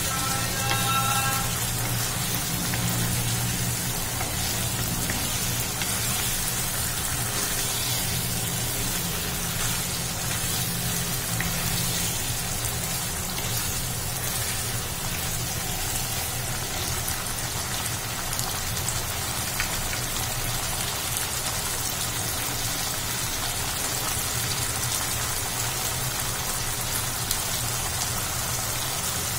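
Spiced onion and yogurt masala sizzling steadily in a nonstick pan as boiled eggs are stirred through it with a wooden spatula, with a steady low hum underneath.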